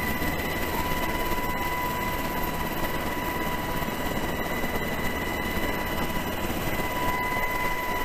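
Military helicopter's rotor and turbine noise heard from inside the cabin with the door open, a steady din with a high whine running through it, while a rescue basket is hoisted aboard.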